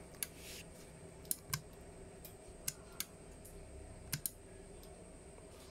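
A few light, sharp clicks, singly and in close pairs, from handling the radio and amplifier controls, over a faint steady hum.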